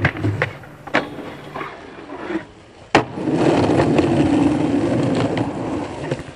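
Skateboard on asphalt: several sharp pops and board impacts in the first three seconds, the loudest about three seconds in, then the urethane wheels rolling with a steady rumble that fades near the end.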